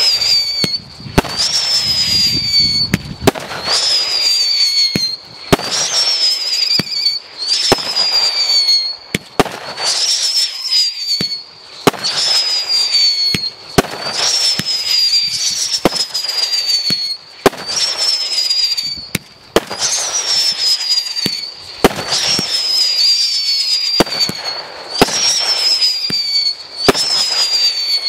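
Timewarp 36-shot firework cake firing its big-bore shots in a steady sequence, about one shot every two seconds. Each sharp launch bang is followed by a hissing, crackling spray with a high, slightly falling whistle-like tone.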